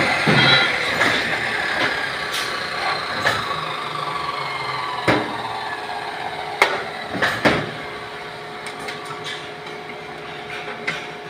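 Abrasive chop saw winding down after a cut, its whine slowly falling in pitch and fading, while steel pieces clank and knock as they are shifted in the saw's vise, with a cluster of sharp clanks around the middle.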